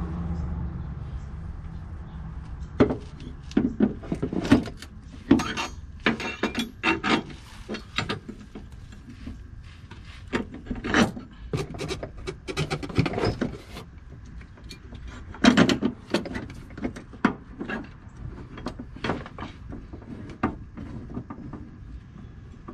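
Irregular knocks, clunks and scrapes as an aftermarket lower control arm is handled, lifted off its cardboard box and pushed up against the car's subframe to line it up. The sharpest knocks come about eleven and fifteen seconds in.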